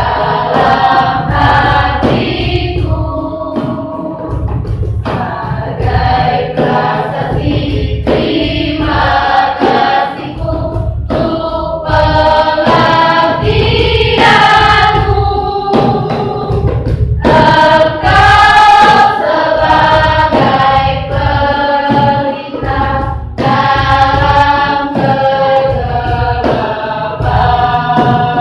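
School choir singing in parts, the sung lines rising and falling, with a heavy low bass underneath the voices.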